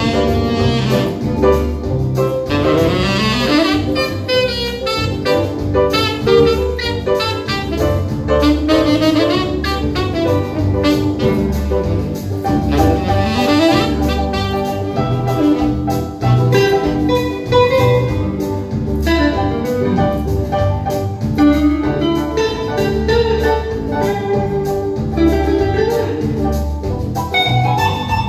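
Live band music: saxophone, electric guitar and keyboard playing an instrumental tune over a steady beat.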